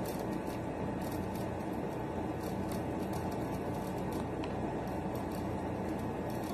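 Chewing a McDonald's chicken nugget with the mouth closed, soft irregular crunching clicks over a steady background hiss.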